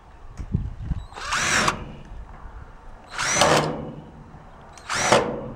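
Cordless drill/driver run in three short bursts, each spinning up and back down, driving a screw with a rubber washer into the container's sheet-steel wall.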